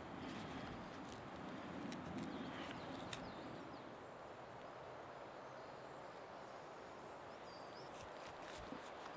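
Faint woodland ambience with a few short bird calls and scattered sharp clicks, the loudest about three seconds in.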